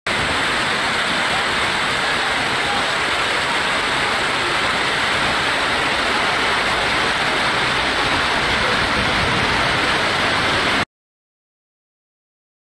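Heavy rain falling, a steady hiss with no rhythm, that cuts off suddenly near the end.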